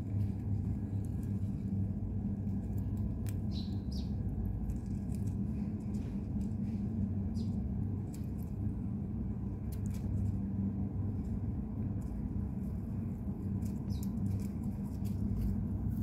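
A steady low hum, with a few short, high bird chirps scattered through it, two close together a few seconds in and others near the middle and near the end.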